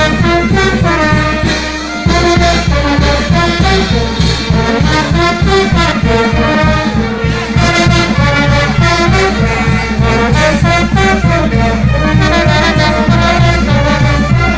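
Loud band music led by brass instruments playing the melody over a steady dance beat; the bass drops out for a moment about two seconds in, then comes back.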